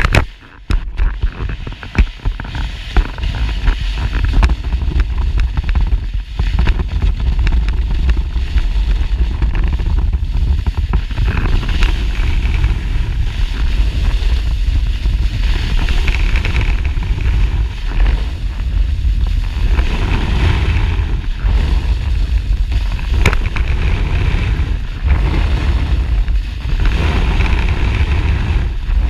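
A board sliding fast down a snow slope, heard from a camera mounted on the board: a continuous loud low rumble of wind and board vibration with the hiss and scrape of the base on snow, broken by a few sharp knocks from bumps.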